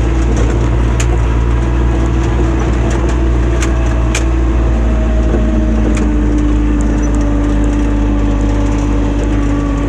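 ATV engine running steadily under way, its pitch rising slightly a little past halfway, with a few sharp knocks as it rides over a bumpy road.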